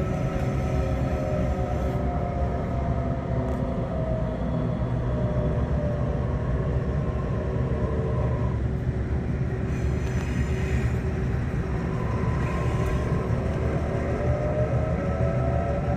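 Diesel locomotive engine running with a heavy, steady drone; its engine note sinks slowly over the first several seconds and climbs again near the end.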